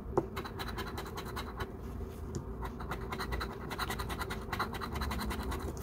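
A large coin scratching the coating off a lottery scratch ticket in quick, rapid strokes, many a second.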